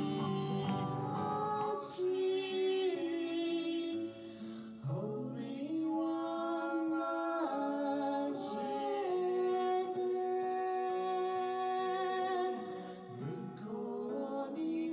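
A voice singing a slow song to acoustic guitar accompaniment, long held notes over the picked strings. The song breaks off about four to five seconds in and another sung passage with guitar begins.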